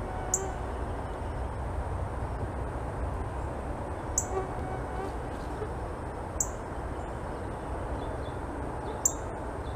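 Northern cardinal giving sharp, short chip calls, four of them a few seconds apart, over a low steady background rumble.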